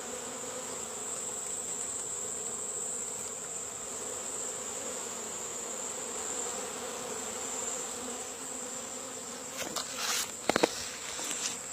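Honeybees from a large colony in a Kenyan top bar hive buzzing steadily, a continuous many-bee hum, which the keeper takes for a calm, happy, thriving colony. A few short knocks come near the end.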